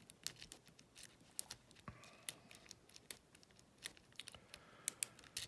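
Bogota-style lock-pick rake being raked in and out against the pin tumblers of an old Yale padlock: light, irregular metallic clicks and ticks.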